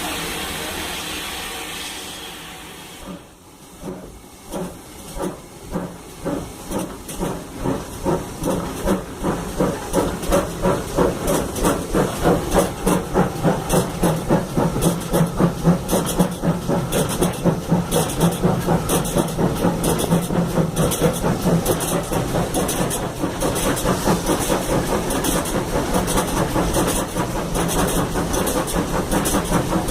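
GWR 94xx pannier tank steam locomotive 9466 hissing steam for about three seconds, then pulling away: its exhaust beats start slow, about one a second, and quicken steadily until they come several a second.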